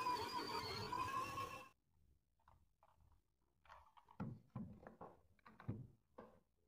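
A steady sound of several held tones stops abruptly just under two seconds in. It is followed by a string of light knocks and clicks as a wooden block is slid and set on a metal rail carriage and a bar clamp is fitted, wood and metal tapping together.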